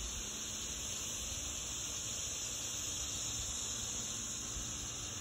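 Steady outdoor background hiss, strongest high in pitch, over a faint low rumble.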